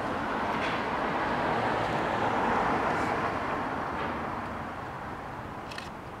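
A passing vehicle out of view: a broad rumble that swells to its loudest about halfway through and then fades, with a few faint clicks.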